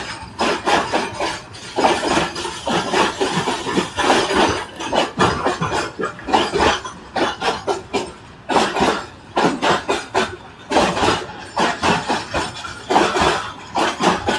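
A passenger train passing close by: a fast, uneven clatter and rattle of wheels and carriages over the track.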